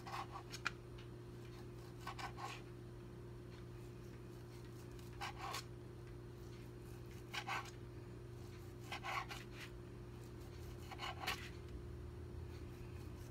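Kitchen knife slicing rounds off a sausage ring on a thin plastic cutting sheet: a short, faint scraping cut about every two seconds, over a steady low hum.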